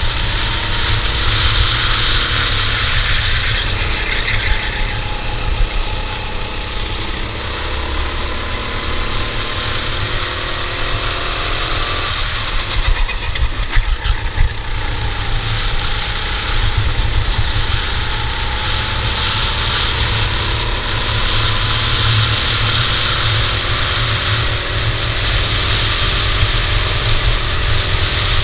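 Racing kart engine under load, its pitch climbing slowly as it gathers speed, dropping sharply about twelve seconds in, then climbing again, over a heavy low rumble and hiss.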